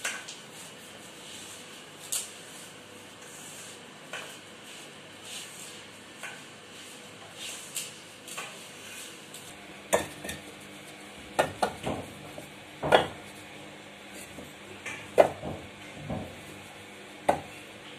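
Hands kneading flour dough in a steel bowl, with soft scraping and small metal clinks. About ten seconds in this gives way to sharp clacks of fired clay bricks knocking together as they are lifted and stacked; these clacks are the loudest sounds.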